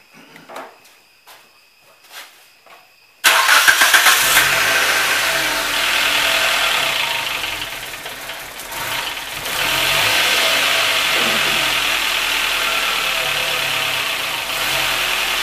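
A Nissan car engine comes in suddenly and loud about three seconds in, running fast just after being started. Its level drops for a moment about halfway and then it runs on steadily. The engine is hard to start because of a bad battery-cable connection that heats up.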